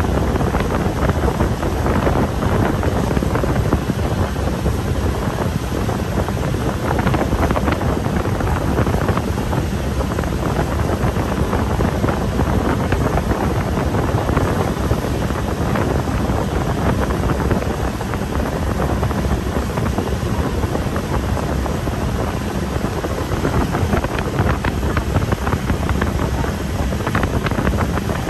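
Boat engine running steadily under heavy wind noise on the microphone.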